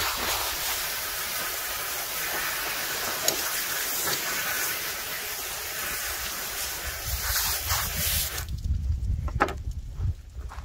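Garden hose spray nozzle shooting a fine jet of water onto salmon fillets and the plywood tabletop: a steady hiss that cuts off about eight and a half seconds in. A low rumble and a couple of soft knocks follow near the end.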